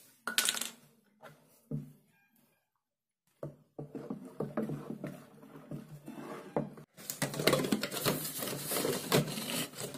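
A wooden spoon knocks and scrapes against a plastic basin while frothy liquid is stirred briskly. About seven seconds in, a louder, dense clatter of empty plastic bottles being handled in a cardboard box starts abruptly.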